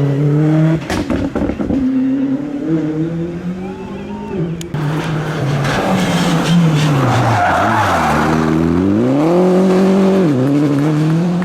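Rally car engine driven hard on a stage: it holds high revs, falls away, climbs again and drops abruptly at a gear change near the end. Tyre and skid noise comes in about halfway through.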